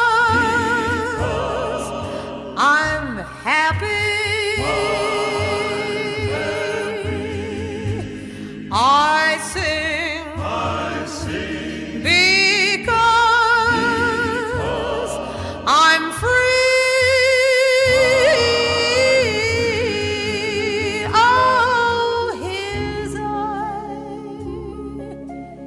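A female vocalist sings the closing phrases of a gospel hymn with wide vibrato and long held notes over a soft accompaniment. The music thins out near the end.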